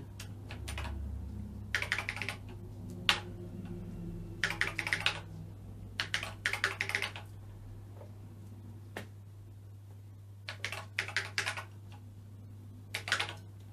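Keystrokes on the BBC Master 128's mechanical keyboard, typed in short bursts of several keys with pauses between them, over a steady low hum.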